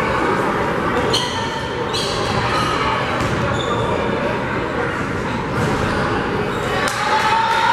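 Basketball bounced on a hardwood gym floor at the free-throw line, over steady crowd chatter echoing in the gym.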